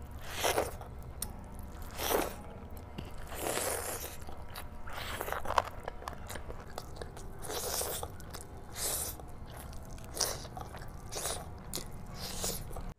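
A person eating big mouthfuls of rice and curry by hand: biting and chewing, with irregular mouth noises about every second.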